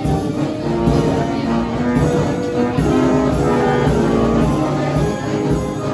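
A W. Bruder & Söhne band organ playing a tune, its pipes and brass trumpets sounding held notes in chords.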